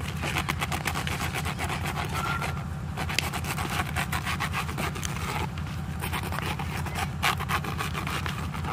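Repeated scratchy rubbing and tapping of a small hard object against a woven plastic floor mat, over a steady low hum.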